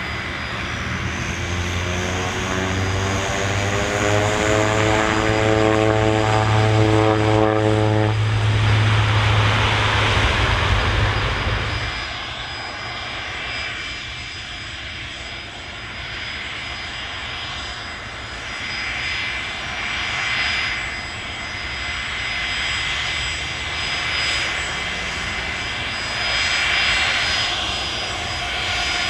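Airliner engines running: a slowly rising pitched hum over a deep drone for about eight seconds, then a rushing engine noise. The rushing drops off after about twelve seconds and then swells and fades, with a thin steady high whine throughout.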